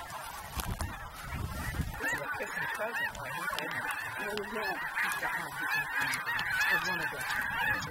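A large flock of snow geese calling: a dense chorus of overlapping short, high honks that thickens and grows louder about two seconds in.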